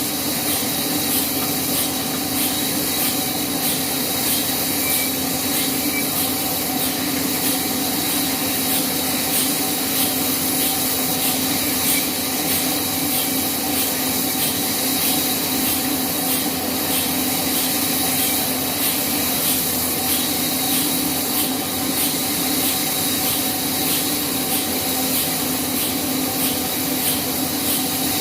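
Sawmill band saw running steadily through a log, a constant hum under the noise of the blade cutting wood.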